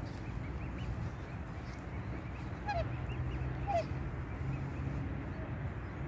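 Black swan cygnets peeping softly and repeatedly, with two louder short swan calls near the middle, over a steady low rumble.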